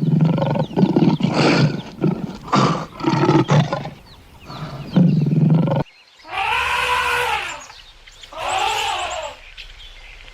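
Animal calls: a run of about five rough, growling roar-like bursts, then after an abrupt cut two drawn-out calls, each about a second long, that rise and fall in pitch.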